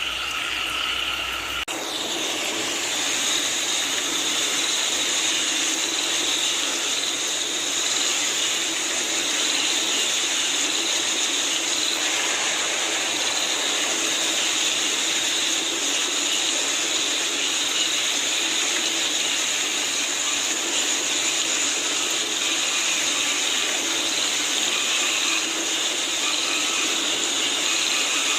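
Steady rain falling, an even hiss, with a chorus of frogs and insects running underneath. About two seconds in the recording changes abruptly, from frogs calling to the denser rain.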